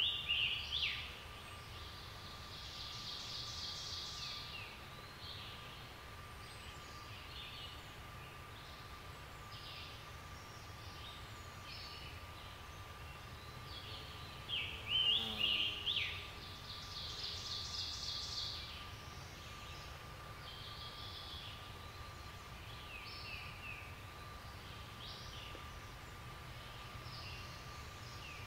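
Wild birds calling and singing in a spring hardwood forest at dawn, with the loudest bursts at the start and again about halfway through, each followed by a longer rattling call; quieter calls come and go in between over a faint steady high tone.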